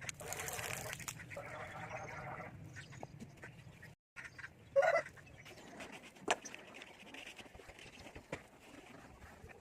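Ducks quacking in runs of calls, with a louder single call about five seconds in and a sharp click a little after.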